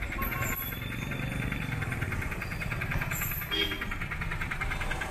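A vehicle engine running close by in street traffic, a steady rapid throb with a low rumble underneath.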